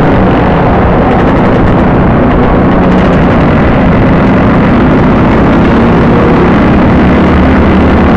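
Scooter engines running on the move in a group ride, with heavy wind rush over the microphone; the engine pitch rises a little near the end as the scooter picks up speed.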